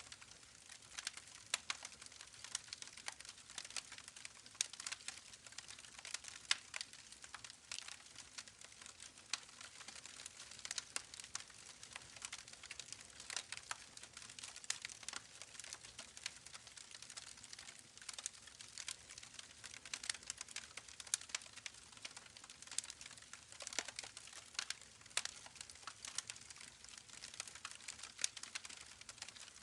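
Campfire crackling, with many irregular sharp pops and snaps, over the steady rush of a babbling creek.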